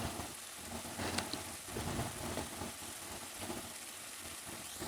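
Onion and garlic paste frying in hot mustard oil in a kadai: a quiet, steady sizzle.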